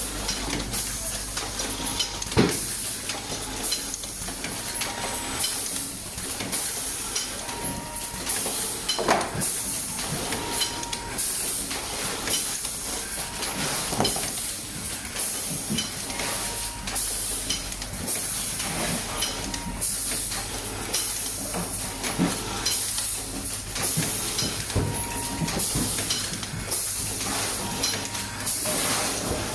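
Toothpick packing machine running: a steady mechanical hiss with irregular sharp knocks and short tones recurring every few seconds.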